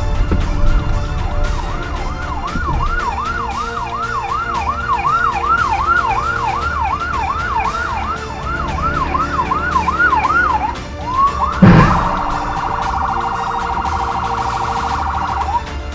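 Police car siren in a fast yelp, rising and falling about three times a second, for about ten seconds. About twelve seconds in a short loud blast cuts in, and the siren switches to a rapid high warble that stops just before the end.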